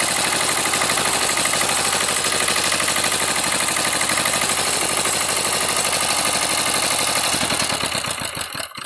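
Greaves 6.5 hp single-cylinder diesel engine running steadily, then shut off near the end: the firing beats slow, spread apart and die out.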